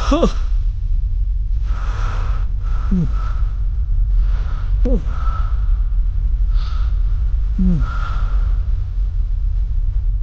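An elderly man sobbing: four drawn-out cries that fall in pitch, a couple of seconds apart, with gasping breaths between them, over a steady low rumble.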